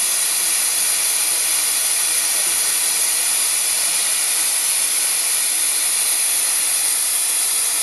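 5-inch gauge model Royal Scot steam locomotive being blown down, with boiler water and steam blasting out beneath it in a loud, steady hiss. This is the boiler being emptied under pressure at the end of the day's running.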